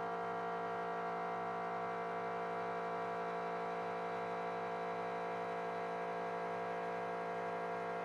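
Tormach PCNC 770 CNC mill running at a constant speed while milling PTFE plastic: a steady whining hum made of many evenly spaced tones, unchanging in pitch and level.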